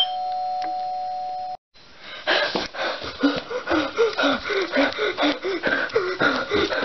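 An electronic doorbell holds a steady two-tone chime that cuts off abruptly about a second and a half in. After a short gap, quick footsteps come with rhythmic, breathy panting, about three a second, as someone hurries to the door.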